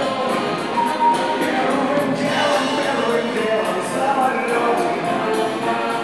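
Big band with brass, saxophones, flute, bass guitar and drums playing a song while a male vocalist sings into a microphone over it.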